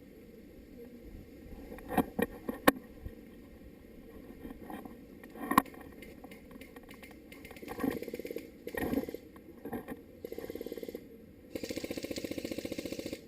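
Airsoft electric rifle firing on full auto near the end: a short burst, then a longer rapid buzzing rattle lasting about a second and a half. Earlier there are a few sharp single cracks.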